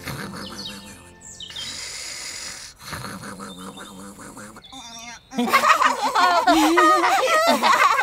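Soft music with a few short bird chirps, then about five seconds in a loud voice starts a wordless, whining cry that wobbles up and down in pitch.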